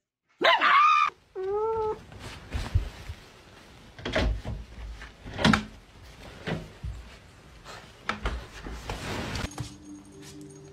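A small white curly-coated dog answers with a loud cry lasting under a second, then a shorter wavering call. Scattered knocks and rustling follow.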